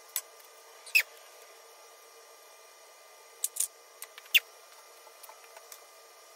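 A few sharp clicks and short squeaks from scissors and fiberglass cloth being handled and the scissors being set down, with fainter taps in between.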